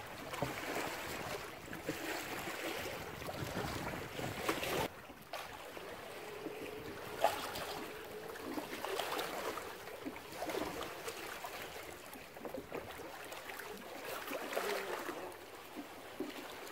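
Choppy lake water lapping and sloshing against a concrete dam wall and bank rocks, with an abrupt change in the sound about five seconds in.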